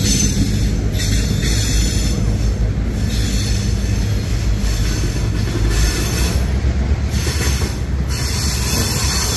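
Freight train cars rolling past with a steady low rumble from the wheels on the rails and a high wheel squeal.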